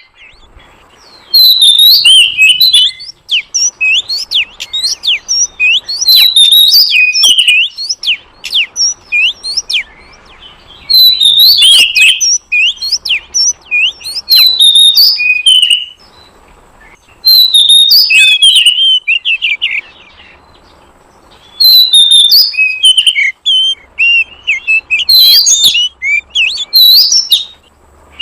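Oriental magpie-robin (kacer) calling in rapid bursts of high, sweeping chirps and whistles, phrase after phrase with short pauses, as played to lure wild magpie-robins.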